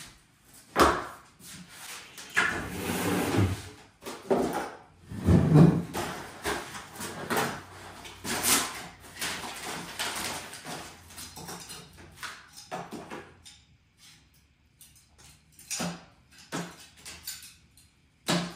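Irregular knocks, thumps and scraping as furniture and household objects are handled and moved about a room, with a sharp bump about a second in and a heavy thud about five and a half seconds in.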